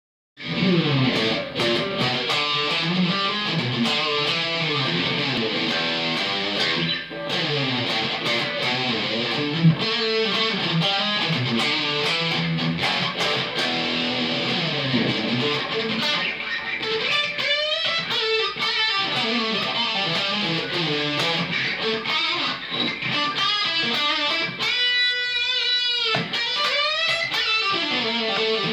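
Rangka Professor S V.2 electric guitar played through a high-gain distorted tone: fast lead runs and riffs. Late on, a single held note with vibrato rings out before the runs resume.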